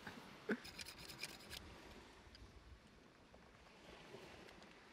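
Faint scraping of a knife blade shaving a thin wooden stick, a run of quick scrapes in the first second and a half, then only faint background hiss.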